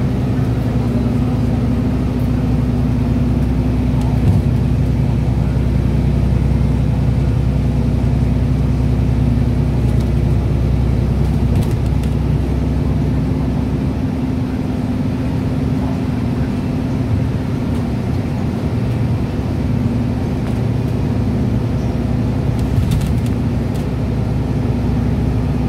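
Steady engine and tyre noise heard from inside a moving vehicle on the road: an even low drone with a steady hum in it.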